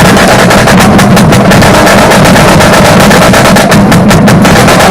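Marching drumline playing a cadence at full volume: rapid snare strokes over deep bass drums, all struck together in a dense, driving rhythm.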